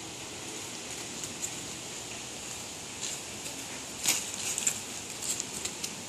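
Footsteps crunching through dry fallen leaves on a grass lawn: a scattering of short, light crackles about three to five seconds in, over a steady faint outdoor hiss.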